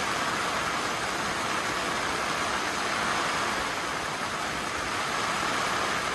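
Rain falling steadily: an even hiss with no separate events.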